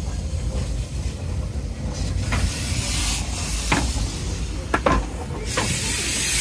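Steam hissing from a standing saddle-tank steam locomotive, growing much louder near the end, over a low rumble with a few light knocks.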